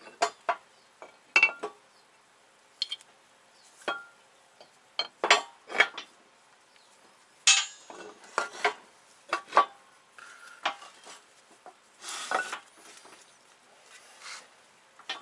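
Metal parts clinking and knocking as a wheel spindle and hub are shifted about on the steel plates of a hydraulic shop press: irregular sharp metallic knocks, some ringing briefly, with a short scrape about twelve seconds in.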